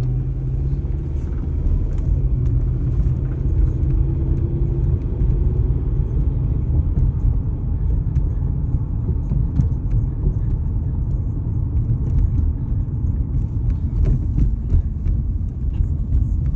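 2004 Toyota Corolla's four-cylinder engine and road noise heard from inside the car while driving: a steady low rumble with faint scattered ticks. The engine has a knock and runs rough as if about to die, with the check engine light blinking, a fault the owner can't explain.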